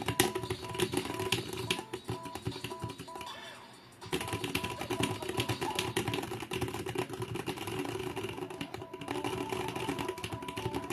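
Fast, continuous typing on a HyperX Alloy Origins 65% mechanical keyboard with HyperX Aqua tactile switches: a dense run of key clacks that eases off briefly just before about four seconds in, then picks up again. Background music plays underneath.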